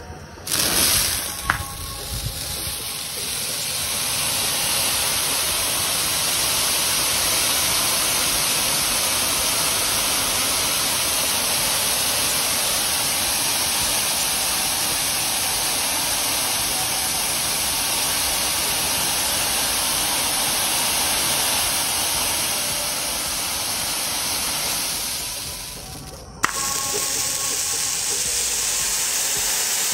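Peacock-effect firework fountain catching just after being lit and spraying gold sparks, a loud steady hiss. The hiss sags a little about 25 seconds in, then a sharp click comes and the hiss starts again.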